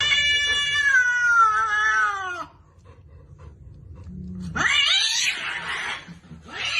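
Cat yowling: a long drawn-out call that falls in pitch at its end, then after a short pause a harsher, rising yowl, and another long call beginning near the end.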